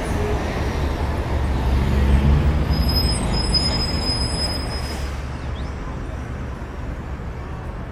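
Wind buffeting the microphone: an uneven low rumble with a rushing hiss, slowly easing off. A thin, steady high tone sounds faintly for about two seconds in the middle.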